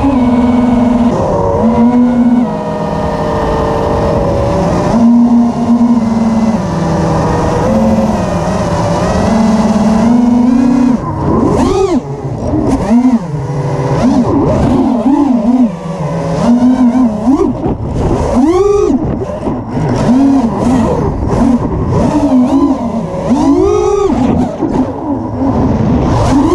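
Electric motors and propellers of an FPV drone, heard through its onboard camera. The whine holds a fairly steady pitch for about ten seconds, then swoops rapidly up and down as the throttle is worked.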